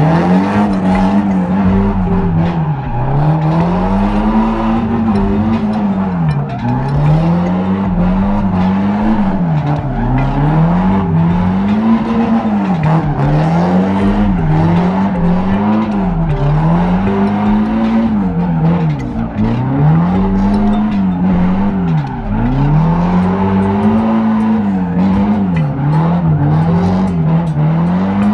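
A car engine revving hard, its pitch climbing and dropping over and over about every two seconds, with tyres squealing: a car drifting or spinning donuts.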